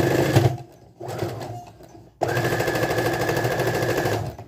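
Domestic sewing machine stitching through the folded waistband of knit fabric, with the fast even rattle of the needle strokes. It runs in two short spurts, then sews steadily for about two seconds and stops just before the end.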